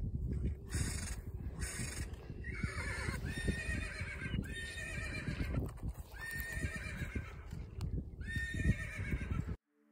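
A horse whinnying in a string of short calls, each about half a second long and about a second apart, starting about two and a half seconds in.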